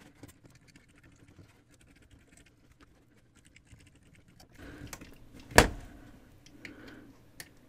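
Knitting hook and yarn working the plastic pegs of an afghan loom: many faint small clicks and rustles, growing louder about four and a half seconds in, with one sharp knock shortly after.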